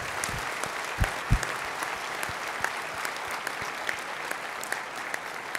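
Audience applause in a large hall: a steady patter of many hands clapping, with a few louder single claps in the first second and a half, easing off a little near the end.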